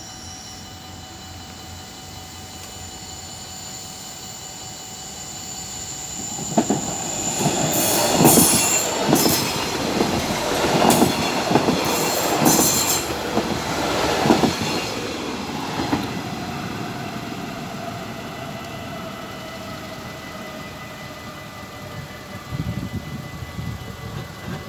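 Two coupled GTW trainsets passing over a level crossing. They sweep in loudly about six seconds in, with wheels knocking over the rail joints several times, then fade away with a falling tone. A few more faint knocks come near the end.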